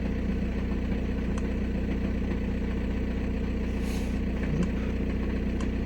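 Volkswagen Passat B6's 1.9 TDI BXE unit-injector diesel idling steadily, its injector balance corrections reading within normal.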